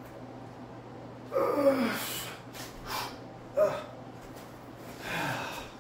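A man grunting and breathing out hard with effort, three heavy exhales falling in pitch, the first the loudest, while working a set of dumbbell overhead presses.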